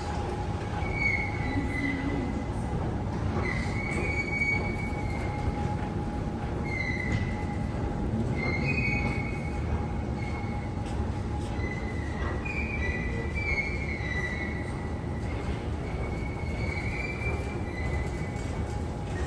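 Rail vehicle running with a steady low rumble and hum, its wheels squealing against the rails in high-pitched squeals that come and go several times.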